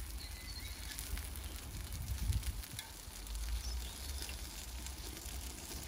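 Sausages and burgers sizzling on a gas barbecue grill, with a few light clicks of metal tongs, over a low, uneven rumble.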